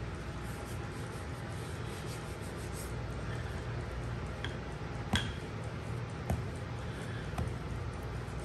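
Small wooden rolling pin rolling crescent-roll dough on a floured wooden cutting board: soft rubbing over a steady low hum, with a few light clicks and knocks, the sharpest about five seconds in.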